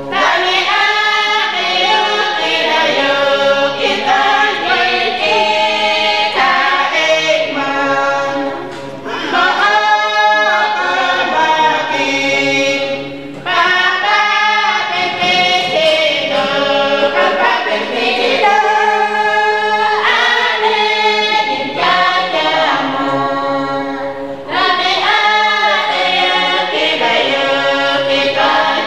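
A group of voices singing together without accompaniment, phrase after phrase, with short breaks about 9, 13 and 24 seconds in.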